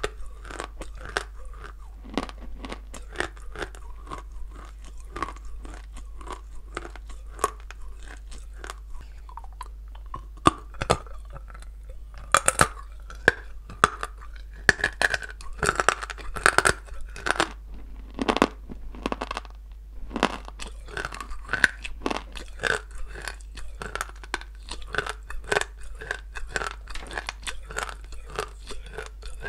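Person chewing dry blue Ural clay, a dense run of rapid, crisp crunches, louder and fuller for a few seconds around the middle.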